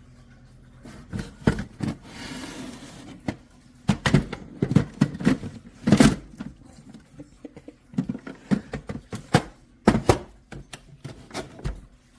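Handling clatter: irregular clicks and knocks of plastic parts being fitted and set down, with a short rustling hiss about two seconds in.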